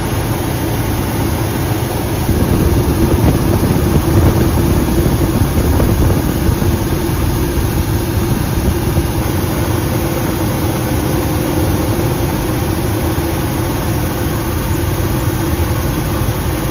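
Steady, loud helicopter engine and rotor noise heard from aboard the aircraft, with a low hum running through it; it grows a little louder about two seconds in.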